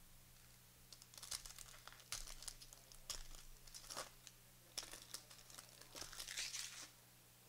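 Plastic-foil trading-card pack wrapper being torn open and crinkled by hand: a run of quick, sharp crackles lasting several seconds, then stopping a little before the end.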